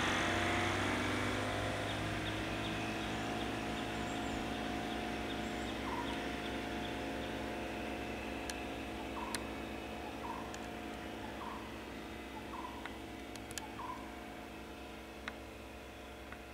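Vehicle engine idling steadily and slowly fading away. From about six seconds in, a bird calls in short repeated notes roughly once a second, and there are a few sharp clicks.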